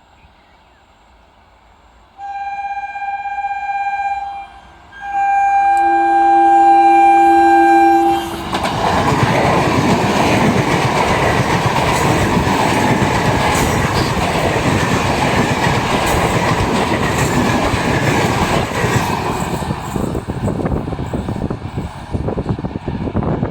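Indian Railways locomotive horn sounding two blasts, the second longer and with a lower tone joining in, then the train passing at speed with its wheels clattering over the rails.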